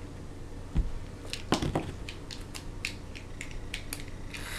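Handling noise of a small plastic bottle: a low thump about a second in, then a scatter of light clicks and taps as it is picked up and turned in the hand.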